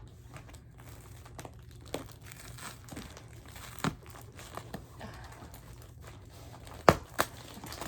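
Packing material crinkling and rustling as a shipping box is unpacked by hand, with scattered small clicks and two sharp snaps close together near the end.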